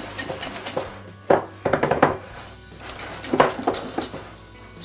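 Wire whisk beating chocolate batter in a glass bowl, its wires clicking and scraping against the glass in quick strokes that come in uneven bursts. This is the vigorous mixing that loosens the chocolate base with the first third of the meringue.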